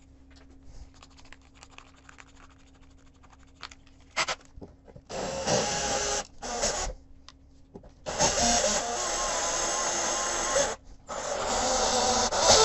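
Parkside cordless drill with a metal hole saw grinding into a very hard Granitek (synthetic granite) sink, with a wavering whine over the grinding. It comes in bursts from about five seconds in, the longest two runs near the end. Before that there are only small handling clicks at the drill.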